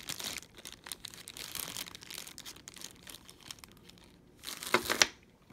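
Clear low-density polyethylene bag crinkling as it is handled, with two sharp louder crackles near the end.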